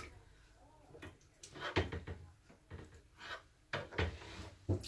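Small kitchen knife knocking against a cutting board as konnyaku is sliced, a handful of short, uneven taps.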